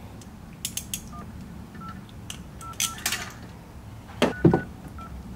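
Smartphone keypad dial tones as a phone number is tapped in: a string of short beeps, about eight of them, unevenly spaced, with light taps between. A couple of louder thumps come a little after four seconds in.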